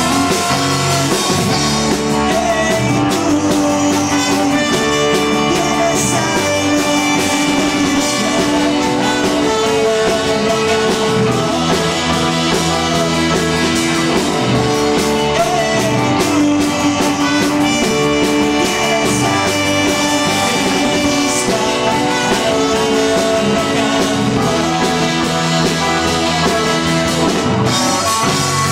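Live rock band playing an instrumental stretch of a rock-and-roll song, with guitars, electric bass, keyboard and drum kit, and a trumpet joining near the end.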